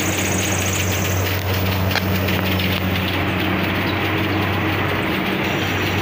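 Kubota rice combine harvester running at work, its engine giving a steady low drone under the noise of the machine.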